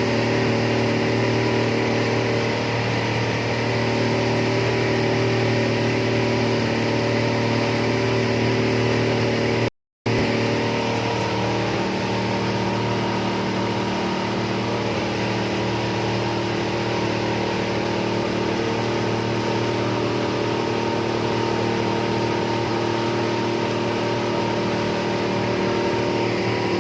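A boat's engine running steadily at cruising speed, with the rush of water and wind. The sound cuts out for a split second about ten seconds in, then carries on.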